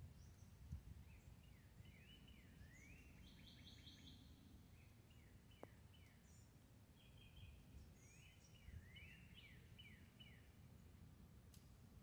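Northern cardinal singing faintly: phrases of quick slurred whistles, each repeated several times, with a few short higher trills among them, over a low background rumble.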